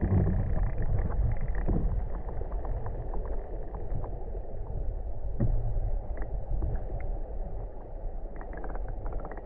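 Muffled low rumble of river water flowing below a dam, heard through a submerged camera, with scattered faint clicks and ticks.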